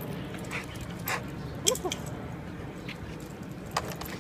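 Dog whimpering, giving a few short high whines about a second or so in, with sharp clicks, the loudest one among the whines.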